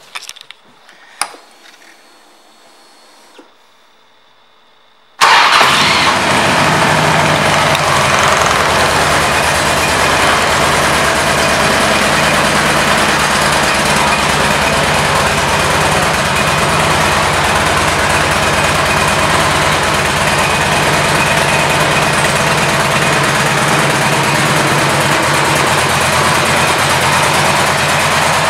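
2006 Harley-Davidson Ultra Classic's V-twin engine: a few faint clicks, then about five seconds in the engine comes on abruptly and idles steadily.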